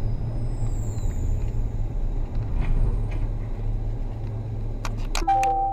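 Steady low rumble of a car's engine and tyres heard from inside the cabin while driving slowly in traffic. Near the end there is a quick run of sharp clicks, then a held tone.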